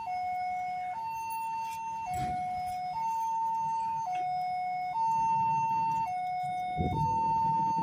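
Railway level-crossing alarm sounding its electronic two-tone warning, switching between a lower and a higher tone about once a second, while the barrier is down for an approaching train.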